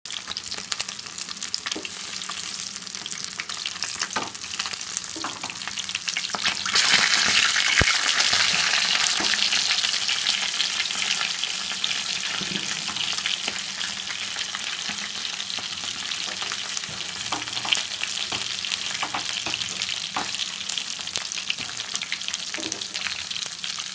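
Pieces of coated fish deep-frying in oil in a pan: a steady sizzling hiss that swells about seven seconds in and slowly eases off, with scattered sharp clicks and pops.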